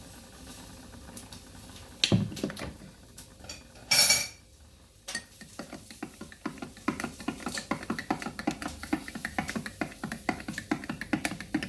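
A knock of a cup or utensil being set down, a short loud hiss, then a metal spoon stirring coffee in a mug, clinking rapidly against the sides.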